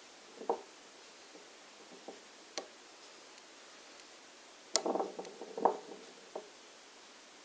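Copper rings and a small magnet handled on a wooden tabletop: a few scattered light knocks, then a sharp metallic click and a short clatter of knocks nearly five seconds in.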